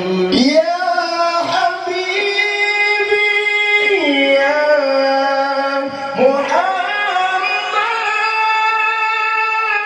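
Unaccompanied high male voice singing sholawat nabi into a microphone over a PA, holding long notes in a high register with sliding, ornamented changes of pitch.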